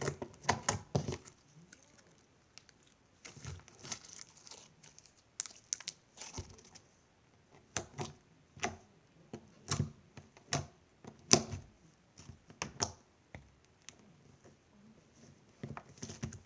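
Fingers poking and squeezing slime, making irregular short sharp pops and clicks, sometimes several within a second, with a quieter pause of a couple of seconds near the end.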